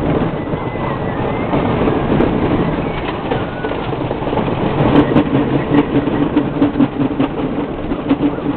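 Screamin' Eagle wooden roller coaster train running at speed on its track, heard from on board: a steady rattling rush that turns into a rapid, regular clatter in the second half.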